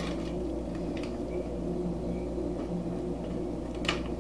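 Silicone basting brush spreading barbecue sauce over ribs in a foil-lined pan: a few faint soft clicks and one sharper tick near the end, over a steady low hum.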